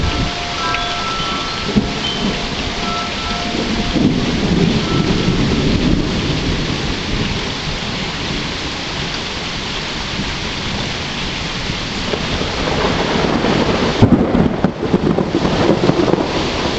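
Steady rain falling with rolling thunder that swells low twice. A wind chime rings in the first few seconds, and wind buffets the microphone near the end.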